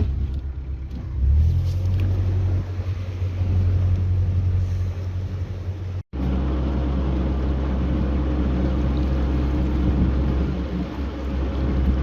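Narrowboat engine running steadily under power, opened up to a louder, deeper hum about a second in.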